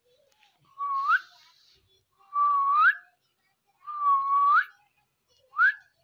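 Indian ringneck parakeet whistling four times, each whistle held on one note and then sliding upward at the end; the fourth is short.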